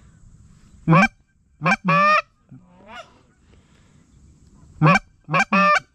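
Loud, short goose honks and clucks in two clusters: three about one to two seconds in, and three more near the end.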